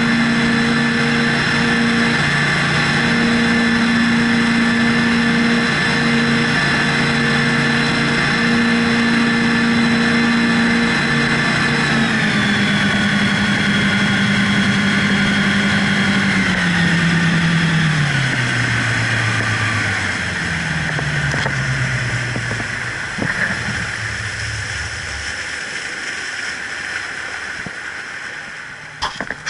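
Twin Seven Marine 557 supercharged V8 outboards running at high speed over rushing water and wind. About twelve seconds in, the engine pitch falls in steps as the throttle comes back and the boat slows, and the engine note fades out near the end, leaving water noise and a few knocks.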